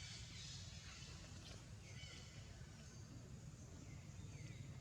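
Faint ambience with a few short, high, downward-curving animal chirps over a low steady hum.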